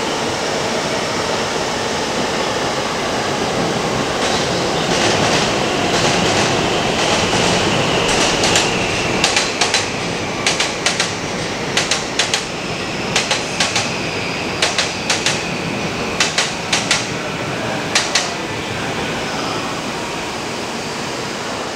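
A Shinkansen train moving along the platform with a steady rumble. A faint whine falls slowly in pitch as it slows, and for several seconds in the middle there is a run of sharp clicks, often in pairs, as its wheels cross rail joints.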